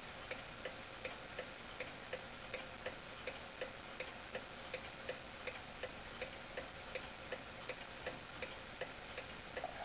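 Steeple clock's mechanical movement ticking steadily in an even tick-tock, about three ticks a second.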